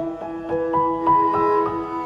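Soft instrumental background music, piano led, with held notes changing every half second or so.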